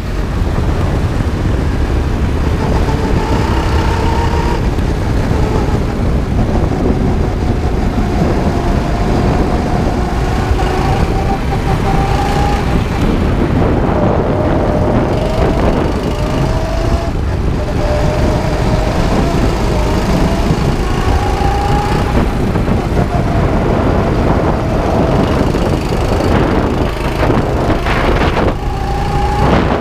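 A 9-horsepower go-kart engine running hard under load, heard from on board. Its pitch rises and falls as the throttle is worked through the corners, over a steady dense rumble of engine, tyre and wind noise.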